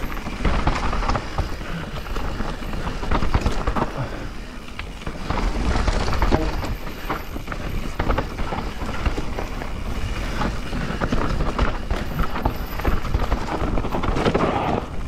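Transition Spire mountain bike ridden fast over a dry, loose trail: tyres scrabbling and crunching over dirt and stones, with the chain and frame rattling and frequent sharp knocks as it hits bumps, over a steady rumble.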